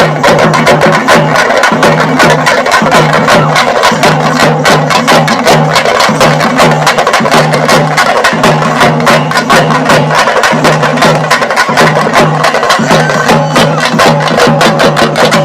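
Fast percussion music: rapid, sharp, wood-block-like strokes over a low beat pulsing about twice a second, with no pause.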